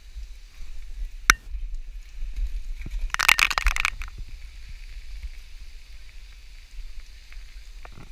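Low, muffled rumble of wind and handling on a head-mounted action camera in its housing, with a sharp click about a second in and a brief burst of crackling about three seconds in.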